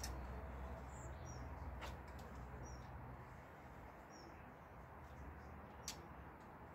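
Faint, scattered bird chirps with a few light clicks from plastic scooter parts being handled, over a low steady background rumble.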